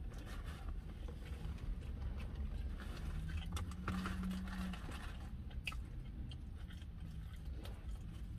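A person chewing and biting into fast food (curly fries and a chicken sandwich), with a few sharp clicks. There is a brief low hum near the middle.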